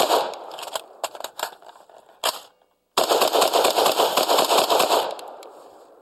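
AR-15 rifle firing a rapid string of shots. Then comes a pause of a few separate metallic clicks and clacks from a quick magazine change to the second of two clamped-together magazines. A second rapid string of about two seconds follows and dies away in an echo.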